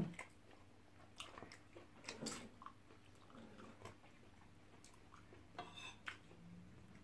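Faint chewing of people eating, with a few short light clicks and taps scattered through.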